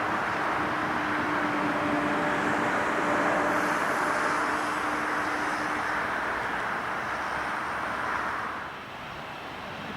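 Jet engines of a Boeing 737-700 (CFM56-7B turbofans), a steady loud rush with a faint steady hum under it that fades out partway through. The noise eases off near the end.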